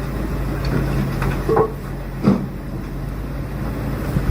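Heavy vehicle engines running steadily at low revs, with a short knock about two seconds in.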